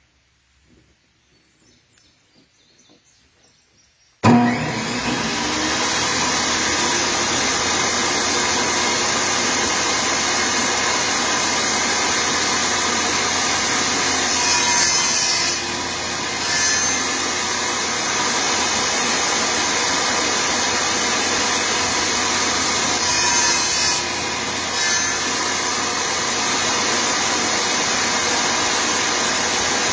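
Table saw switched on about four seconds in, its motor and blade running steadily as a piece of cedar is fed through, the cut growing louder twice along the way.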